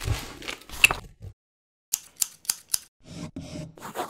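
Paper and cardboard rustling and scraping, with a quick run of four sharp snipping clicks about two seconds in.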